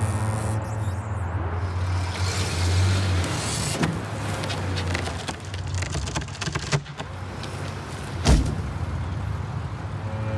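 Heavy machinery's engine running at a tree removal, with a run of sharp cracks and knocks and one heavy thud about eight seconds in.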